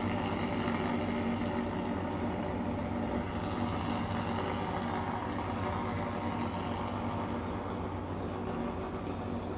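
Steady low mechanical hum of machinery running, with an even drone that does not change.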